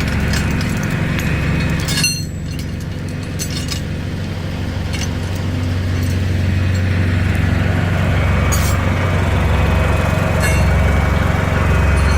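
An engine running steadily, with light metallic clicks and clinks scattered over the first few seconds and a couple more later on.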